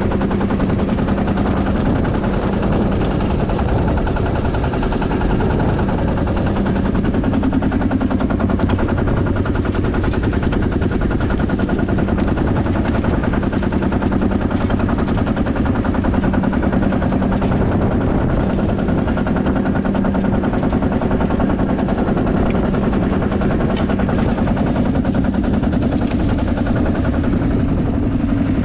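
1958 Lanz Bulldog D2416's 2.6-litre single-cylinder two-stroke diesel engine running steadily with its rapid, even pop-pop-pop beat while pulling a two-furrow mounted plough through the soil.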